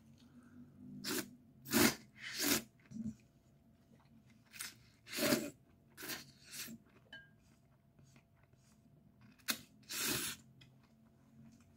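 A person slurping bibim-guksu (thin noodles in spicy sauce) off chopsticks: a series of short, sharp slurps, with quieter chewing between them.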